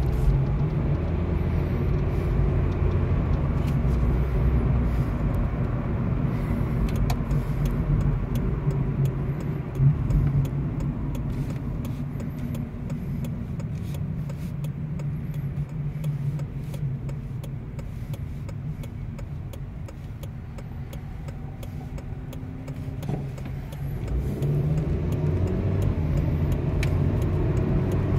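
Engine and tyre noise heard inside the cabin of a moving Honda Civic in traffic: a steady low hum that eases off through the middle as the car slows, then picks up again near the end as it accelerates.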